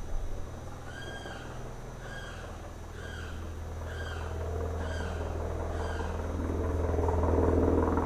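A limpkin calls six times, about once a second, each a short arched cry. A low jet rumble builds under it and is loudest near the end.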